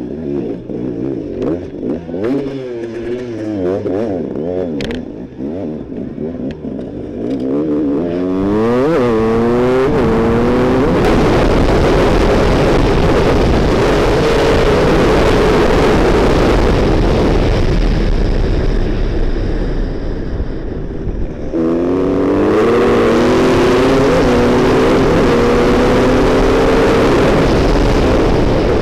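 Onboard sound of an enduro motorcycle's engine: revving up and down in short bursts at low speed, then climbing steeply into loud sustained high revs at speed. About three-quarters of the way through the revs drop briefly, then climb again in several rising steps, as it shifts up through the gears.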